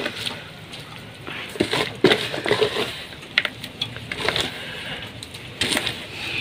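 Handfuls of wet chopped greens being scooped from a plastic basin and dropped into a steel pot: irregular soft squelches and rustles, with a few sharper knocks against the basin and pot.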